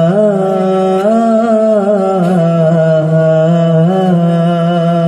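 Male voice singing one long, drawn-out qawwali note with small ornaments, its pitch stepping up about a second in, back down near two seconds, and lifting briefly near four seconds.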